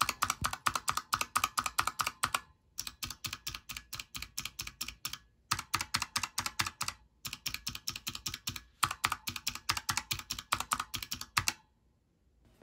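A clicky Razer optical switch on a Razer Huntsman Quartz keyboard, with its keycap off, pressed rapidly over and over. Each press gives a sharp click, about six a second, in five runs with short pauses between them.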